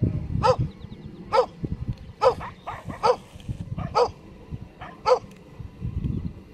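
Komondor barking: about nine short, separate barks at an uneven pace, over a low steady rumble.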